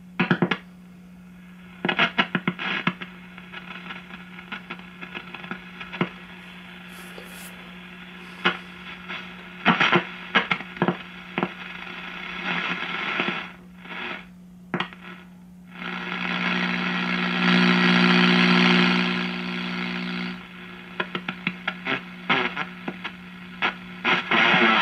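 A 1939 Fada Model 169 tube radio's speaker hissing and crackling with shortwave static as it is tuned across the top band, over a steady low hum. Many sharp clicks come and go, and a louder rush of signal noise rises about 16 seconds in and falls away about 20 seconds in.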